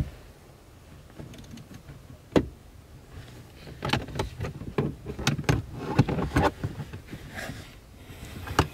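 Irregular clicks and knocks of a hand tool and metal harness hardware as a harness mounting bolt is tightened, thickest from about four to six and a half seconds in.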